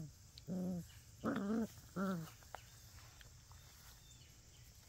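Puppies giving three short, wavering vocal calls in quick succession in the first half, then quiet grass-and-yard background.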